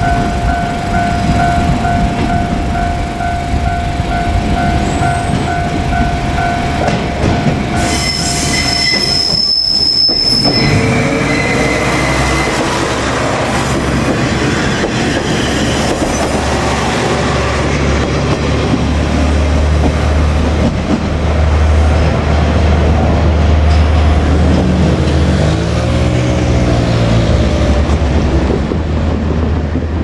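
KiHa 47 diesel railcar passing close by, its diesel engine running with a low drone over the noise of wheels on rail. There is a brief high squeal about eight seconds in, and a steady ringing tone during the first seven seconds.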